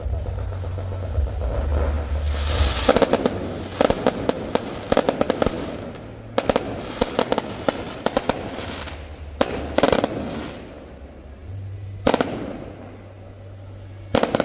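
Aerial fireworks going off, in clusters of rapid crackling pops about every second or two. A low rumble sits underneath at the start and again near the end.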